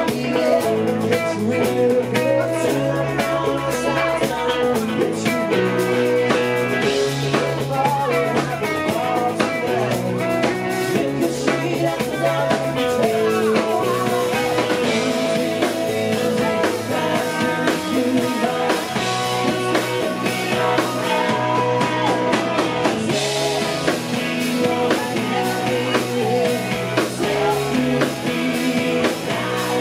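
Live country-rock band playing a song: two electric guitars, bass guitar and drum kit, with a male lead singer.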